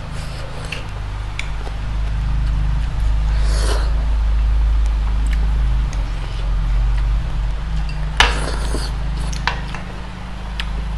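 Eating at the table: light clicks and scrapes of utensils on noodle bowls, with two louder bursts, one a little before halfway and one past the middle, over a steady low hum.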